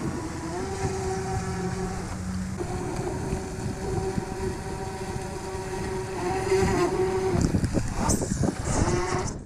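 RC speedboat's motor running with a steady whine as the boat is driven across the pond, cutting out briefly about two seconds in and changing pitch near the end, over low wind rumble on the microphone.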